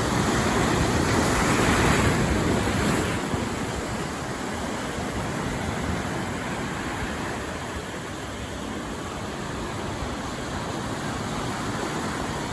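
Ocean surf washing against shoreline rocks. The surge builds to its loudest about two seconds in and then settles into a steady wash.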